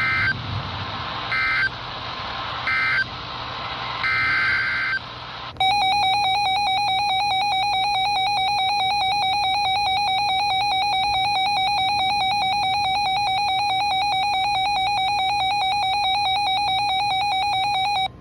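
NOAA Weather Radio emergency alert signalling: four short bursts of warbling SAME digital data tones, then a steady, piercing alert tone held for about twelve seconds that announces a new warning.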